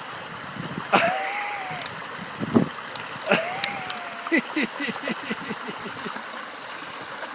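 River rapids rushing steadily, broken by a few sharp splashes. There are two short rising-and-falling tones, about one and three seconds in, and a quick run of short strokes around the middle.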